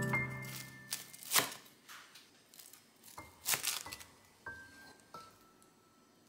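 Large kitchen knife cutting through a pan-fried hotteok and knocking on a plastic cutting board: a few sharp chops, the loudest about one and a half seconds and three and a half seconds in.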